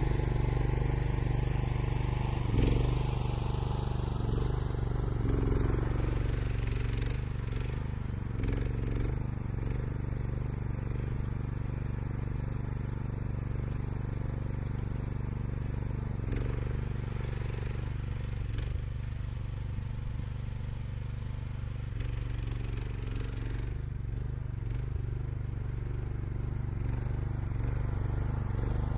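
Homemade hydraulic skid steer loader's engine running steadily, with a higher whine that climbs in pitch over the first few seconds and drops again near the end.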